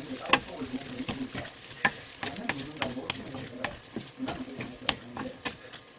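Food sizzling in a frying pan while it is stirred, with irregular clicks and scrapes of the utensil against the pan.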